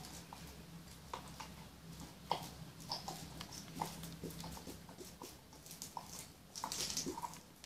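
Small plastic glue bottles being squeezed into plastic tubs: scattered faint clicks and short squelchy squeaks, over a low steady hum.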